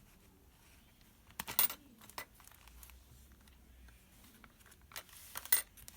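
Packaging being handled: two short bursts of crinkling and clicking, about a second and a half in and again near the end.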